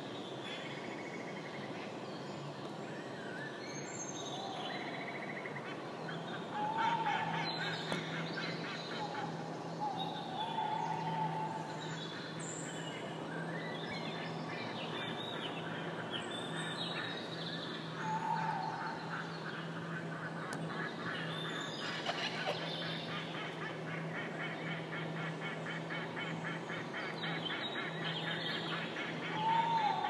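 Many birds calling together in dense chatter, with honking calls standing out several times. A steady low hum runs underneath from about six seconds in.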